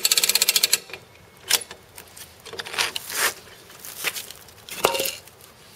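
Hand-crank rope winch ratcheting with rapid, even clicks as it is let out to slacken the ballista's string, stopping abruptly under a second in. Then a few scattered knocks and rustles as the rope and its metal fittings are handled.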